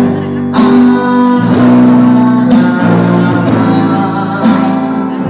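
Live band music: a guitar-led instrumental passage between the sung lines of the song.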